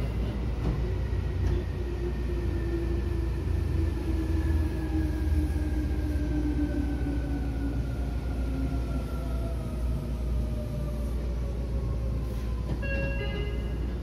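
Electric train running with a steady low rumble, over which a motor whine falls slowly in pitch for about twelve seconds. A brief set of electronic beeps sounds near the end.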